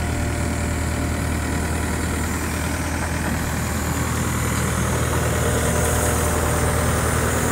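Backhoe loader's diesel engine running steadily as its hydraulic arm raises the bucket, with a low, even hum that grows slightly louder near the end.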